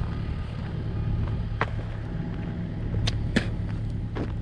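Motor vehicle driving slowly along a dirt and gravel road, its engine running with a steady low hum, and a few sharp clicks along the way.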